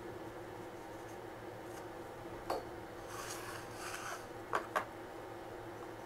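Faint handling sounds of marking out a cedar board with a steel combination square: a sharp click, a second or so of scratchy rubbing as the board and square are slid across the bench, then two sharp clicks close together as the square is set against the board's edge.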